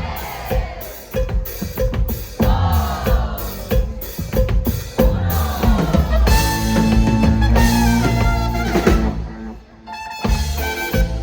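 Live Latin pop band playing: a drum kit hits a steady beat through a build-up, then the band holds a loud chord. The chord breaks off briefly about nine seconds in, and the music starts up again.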